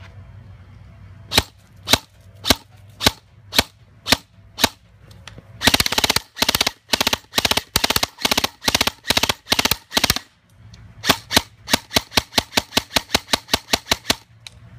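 G&G Combat Machine 16 Raider airsoft electric gun firing: single shots about two a second, then a long run of rapid shots, then another fast string of shots that stops suddenly near the end.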